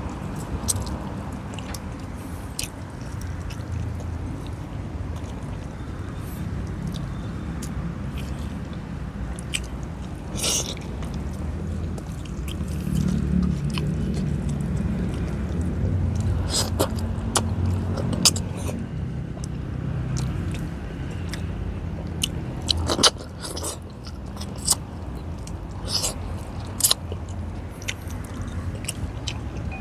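Close-up eating sounds: a person chewing pieces of boiled barracuda and rice eaten by hand, with wet mouth noises and scattered sharp clicks and smacks.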